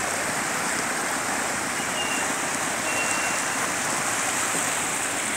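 Steady rushing of water flowing in a concrete river channel, with two faint short high whistles.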